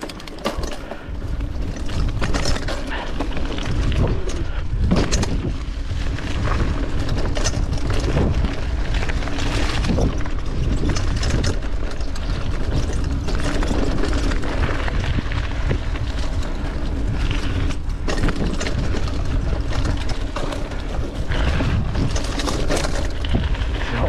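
Mountain bike ridden over a rough dirt trail, picked up by a camera carried on the ride: a constant low wind rumble over the microphone with irregular knocks and rattles from the bike over bumps.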